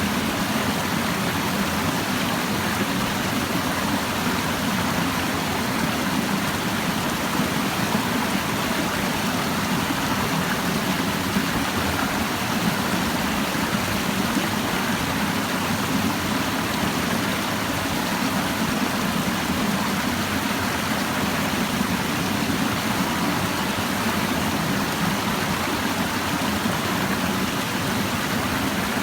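Clear mountain stream babbling over rocks, a steady, even rush of flowing water.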